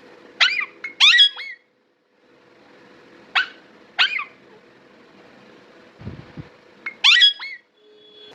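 Two parrots squawking back and forth in short, harsh calls: a quick cluster at the start, two single squawks in the middle, and another cluster near the end.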